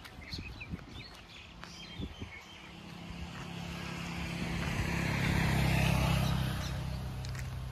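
A road vehicle drives past: its engine hum and tyre noise build from about three seconds in, are loudest around six seconds, then fade.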